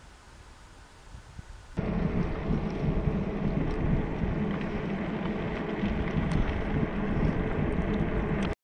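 Faint wind rumble, then about two seconds in a sudden switch to loud, steady wind buffeting on the microphone of a camera riding on a fatbike moving fast down a paved mountain road, mixed with the rush of the tyres on asphalt. It cuts off abruptly near the end.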